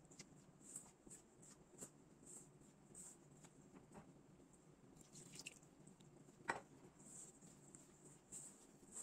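Faint squishing and rubbing of a hand mixing flour into a soft dough in a stainless steel bowl, with small scattered clicks and one sharper tap about six and a half seconds in.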